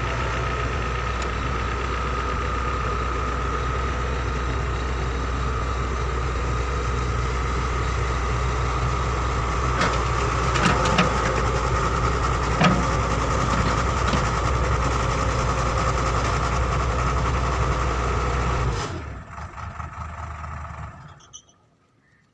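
Heavy earth-moving machine's engine running steadily, with a few short knocks partway through. It drops away sharply near the end, fading to near silence.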